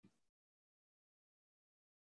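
Near silence: the audio drops out almost completely, with only a faint, brief noise at the very start.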